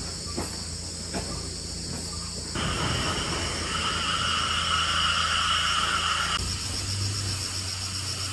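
Steady high-pitched insect trilling over a low, even hum; a steady higher whine comes in for about four seconds in the middle and then stops.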